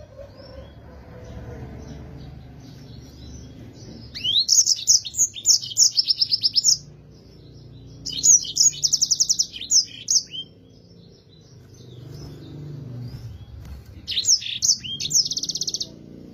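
Yellow-fronted canary singing in three bursts, each about two to three seconds long, made of quick downward-swept whistles running into fast trills.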